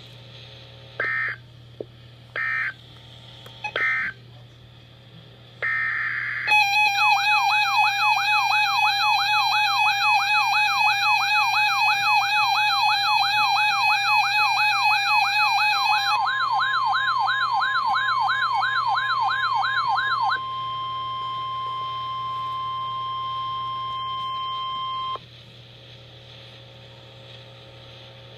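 Emergency Alert System tones. Three short, screechy digital data bursts close out the tornado warning, then comes one longer burst. A loud warbling siren-like alert tone follows, sweeping up and down about twice a second. Partway through, a steady high tone (the weather-radio alert tone) joins it, carries on alone once the warble stops, and cuts off suddenly, leaving a low hum.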